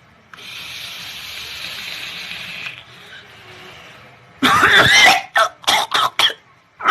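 A steady hiss lasting about two and a half seconds, then a person coughing hard in a fit of several rough coughs, starting about four and a half seconds in, with one more near the end.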